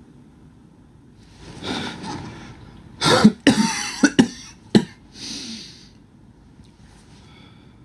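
A man coughing: a long breath in, then a fit of about five harsh coughs in quick succession, then a breath out.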